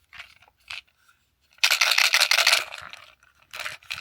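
Toy packaging being handled and torn open: a couple of short rustles, then a loud crackling tear about a second and a half in that lasts about a second, and another short rustle near the end.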